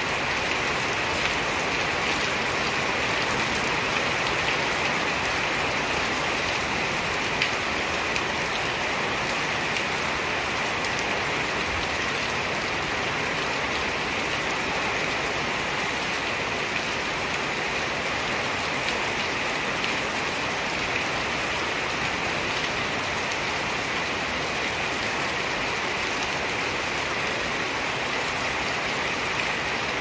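Steady rain falling on brick paving, a parked car and the leaves of potted plants, an even hiss with scattered closer drop hits.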